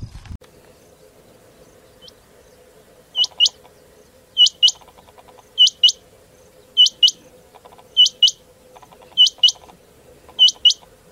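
Male rain quail calling: a sharp two-note call, repeated seven times about once every second and a quarter, over a faint steady hum.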